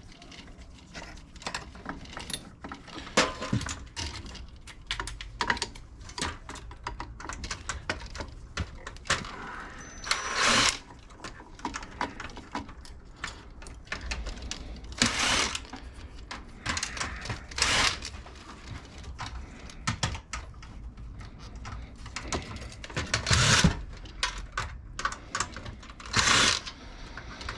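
Hand tools clicking and clinking on metal parts as a bracket is worked off a piece of electronic scrap, with about five short, louder rushes of noise spread through.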